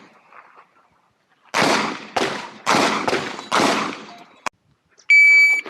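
Shotgun shots, five in quick succession about half a second apart, then a short pause. Near the end comes one loud steady electronic beep from a shot timer, the start signal for a run.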